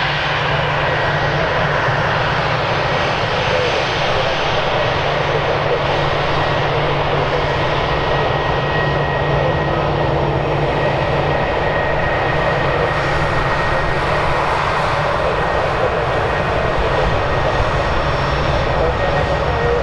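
Jet engines of an easyJet Airbus A320-family airliner running, a loud steady noise with a faint high whine held throughout.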